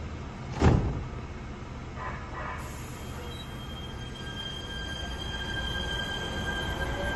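Los Angeles Metro light-rail train pulling away from the platform. A sharp thump comes just under a second in. Steady high-pitched tones follow from about three seconds in, then a rising whine near the end as the train gathers speed.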